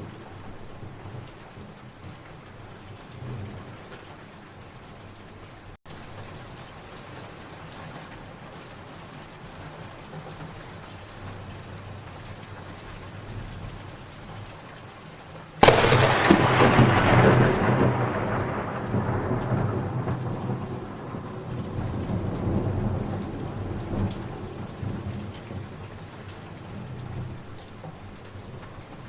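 Steady rain, with a sudden loud thunderclap a little past halfway that rolls on as a low rumble, fading over about ten seconds.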